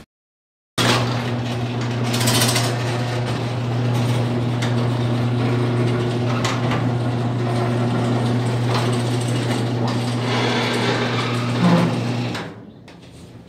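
1999 Jeep Cherokee XJ engine running with a rattle from the accessory drive, like the marble in a spray-paint can, which the owner takes for a loose pulley. It cuts off about 12.5 seconds in.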